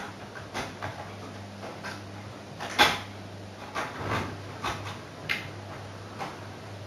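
Irregular clicks and knocks, the loudest about three seconds in, over a steady low hum.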